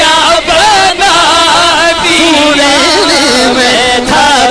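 Male voice singing a naat into a microphone, holding a long ornamented phrase whose pitch wavers and glides without a break.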